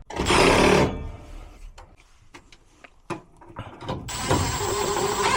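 A short loud rush of noise, then a few clicks and knocks; about four seconds in, a gas furnace's draft inducer motor starts and runs with a steady whir and a thin high whine, the first step of the furnace's start-up before the hot-surface igniter comes on.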